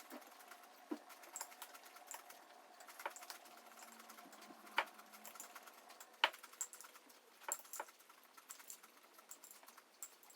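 Faint, irregular clicks and taps of a spoon against a cereal bowl while eating cereal.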